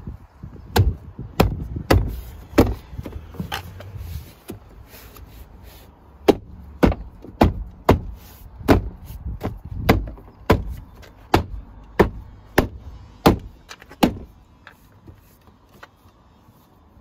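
A gloved hand thumping a VW Golf Mk6's interior door panel to snap its plastic retaining clips into the door: sharp knocks, a few irregular ones at first, then a steady run of about a dozen at roughly one and a half a second, stopping a few seconds before the end.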